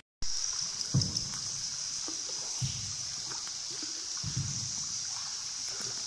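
Paddle strokes pulling through river water from a small paddled boat, a soft splash and thump about every one and a half seconds, over a steady high hiss.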